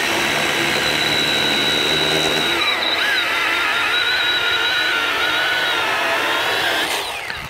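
Milwaukee 12-volt cordless mini chainsaw cutting through a ponderosa pine log: a steady high motor whine with the chain rasping through the wood. The pitch sags slightly about three seconds in as the chain bites, and near the end the motor winds down and stops.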